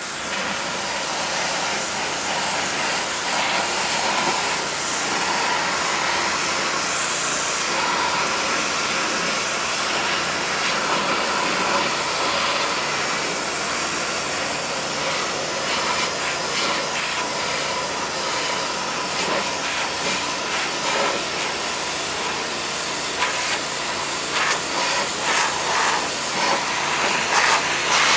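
Unimanix ARH-4070GDCS hot-water pressure washer jet blasting rust and paint off a steel wheel rim, a steady loud hiss of spray and steam. In the last few seconds the hiss comes in uneven surges.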